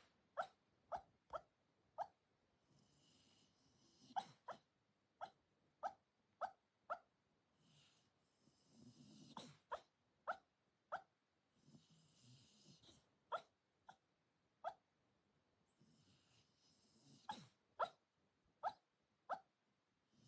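Senior Shiba Inu talking in its sleep: short, sharp yips in clusters of two to six, with breathy huffs between some of the clusters.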